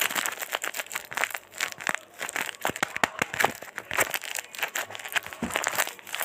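Blind-bag packaging crinkling and crackling as it is handled, a dense run of small crackles.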